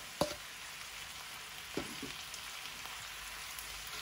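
Cabbage, bacon and smoked sausage sizzling in a skillet: a steady frying hiss. A couple of sharp clicks from metal tongs turning the food come just after the start and about two seconds in.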